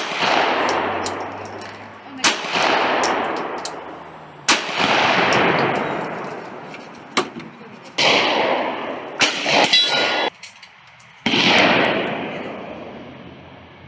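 Pistol shots fired one at a time, about five of them two to three seconds apart, each trailing a long echo, with light metallic clinks in between.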